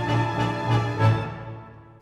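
Background orchestral music with strings and a pulsing low bass, fading away near the end.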